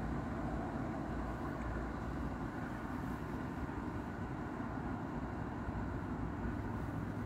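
Steady low background rumble: an even noise with no distinct events.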